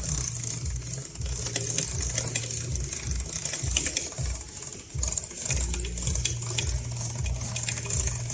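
Honda CB400 drive chain and sprockets ticking rapidly as the rear wheel turns, over a steady low hum. The ticking comes from the chain being unevenly stretched, taut in one spot and slack in another.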